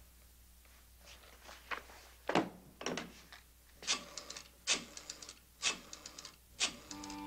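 Desk telephone handset picked up and the rotary dial worked: a series of knocks and clicks, several followed by a quick run of ticks as the dial spins back. String music comes in near the end.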